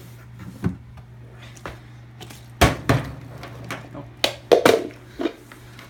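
Plastic water bottle being flipped and knocking onto a hard surface, then clattering as it tumbles: a series of sharp knocks, the loudest about two and a half seconds in. A low steady hum runs underneath.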